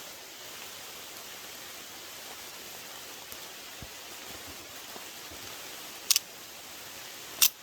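Two sharp shots from a prototype pistol, about a second and a half apart near the end, over the steady hiss of falling rain.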